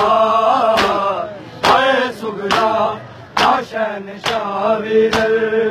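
Men chanting a Punjabi nauha, a Shia mourning lament, with a crowd beating their chests (matam) in unison. The beats come as sharp slaps about once a second. Near the end the voices hold one long note.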